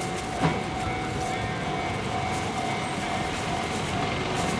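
Kintetsu electric train running through a level crossing, a steady rumble of wheels on rail, while the crossing's warning bell rings on. A sharp knock sounds about half a second in.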